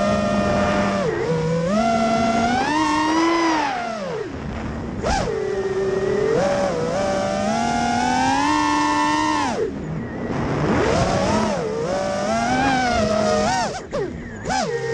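FPV freestyle quadcopter's brushless motors and propellers whining, recorded onboard, the pitch rising and falling continually with the throttle. Near the end the sound briefly drops as the quad flips.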